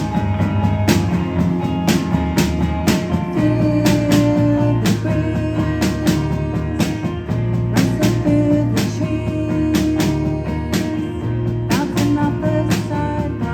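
Band playing live: guitar-led rock music with a steady beat of about two strokes a second.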